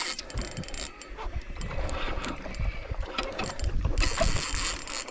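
Fishing reels working while hooked tuna are played: the gears winding and the drag ratcheting as line is given and taken, in uneven spurts.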